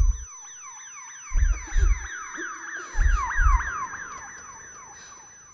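Emergency-vehicle siren wailing in fast repeated sweeps, over deep thumps that come in pairs; the siren fades out near the end.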